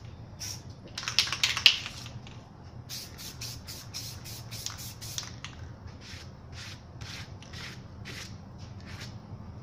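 Aerosol spray paint can fired in many short bursts of hiss. A dense, louder cluster comes about a second in, then the bursts run on at two or three a second.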